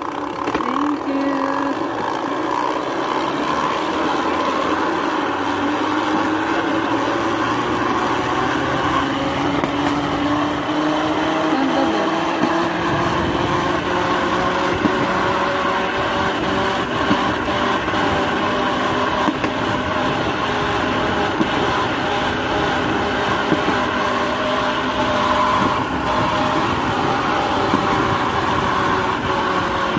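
Small engine of a rail trolley running as it travels along the track, its pitch rising over the first dozen seconds as it picks up speed, then holding steady, with occasional clicks from the wheels on the rails.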